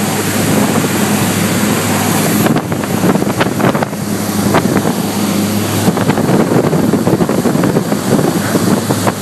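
Motorboat running at speed: a steady low engine drone under the loud rush of wind on the microphone and water, with a few sharp knocks.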